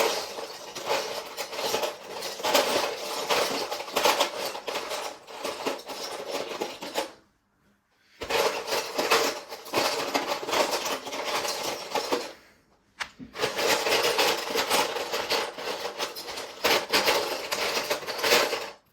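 Handfuls of loose plastic Lego bricks rattling and clattering as a hand rummages through a box of mixed pieces in search of one particular brick. The clatter stops twice for about a second.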